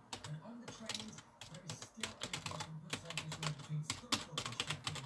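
Computer keyboard keys clicking rapidly as a hand types or presses across them, in quick irregular runs that grow denser in the second half.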